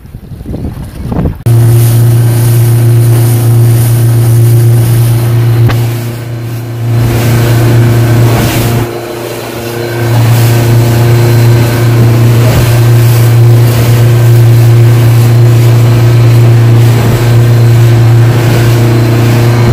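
Yamaha 115 outboard motor running at a steady speed with the boat underway: a loud, even low drone over the rush of wind and water. The engine sound cuts in suddenly about a second and a half in, after a moment of only wind and water, and dips for a few seconds in the middle before returning.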